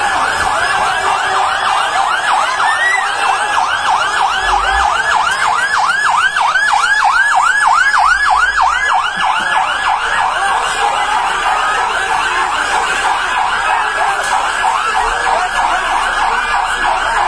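Fire engine siren in a fast yelp, rising and falling about four times a second. It is strongest for the first ten seconds or so, then grows fainter and less distinct.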